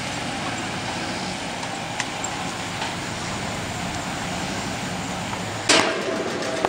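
Pickup truck engine running at low speed as it slowly tows a loaded car trailer across a yard. About a second before the end there is a sudden louder knock, and a steady tone follows it.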